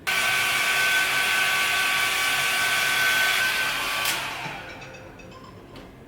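A small electric motor-driven appliance with a fan, such as a hair dryer, runs with a loud hiss and a steady whine, then is switched off about four seconds in and winds down, its whine sliding lower as it fades.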